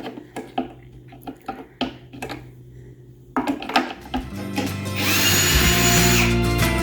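A few light clicks and knocks of small metal parts being handled. Then, about four seconds in, a power drill starts and runs with a steady, even-pitched whine, driving screws.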